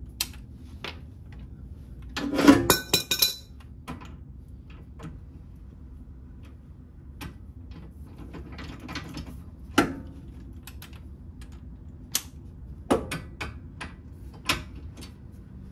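Metal tools and fasteners clinking and clanking as a nut is worked onto a crossmember bolt by hand under a vehicle. There is a ringing clatter of clanks a couple of seconds in, then single clicks scattered through the rest.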